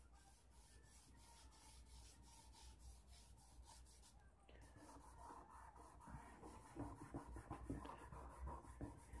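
Faint scratching and rubbing of a charcoal stick on drawing paper as shadows are shaded in, the strokes getting busier about halfway through.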